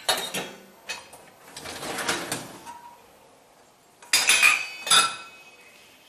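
Stainless steel vessels clinking and clattering against each other and the dishwasher's wire rack as they are handled. A few knocks come at the start, then a longer rattle, and the loudest metallic clatter, with ringing, about four seconds in.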